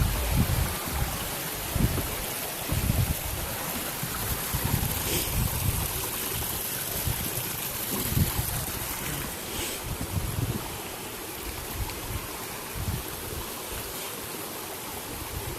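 Gordale Scar waterfall rushing steadily, with irregular low rumbles of wind buffeting the microphone.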